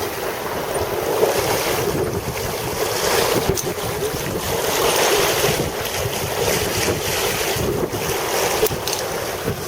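Strong, steady wind buffeting the microphone over the rush of water along a sailboat's hull under sail, with a few light knocks.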